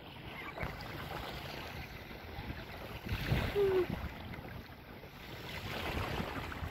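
Wind gusting across the microphone over a soft wash of small waves, with a short, slightly falling note about halfway through.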